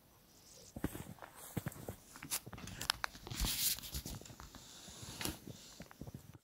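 Footsteps crunching in snow, faint and uneven, starting about a second in.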